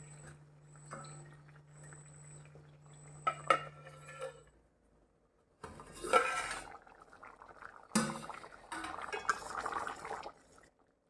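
Cooking pot and its lid clinking and clanking, a few separate strikes, with a soft rushing noise after the loudest clank near the end.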